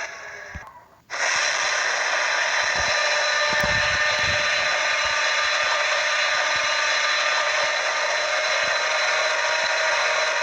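Godzilla sound effect: a loud, steady rushing hiss that cuts in about a second in after a short dip and holds unchanged.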